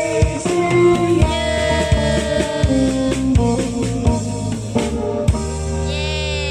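Music with a drum kit keeping a steady beat and guitar. The drum hits stop about five seconds in, leaving held notes.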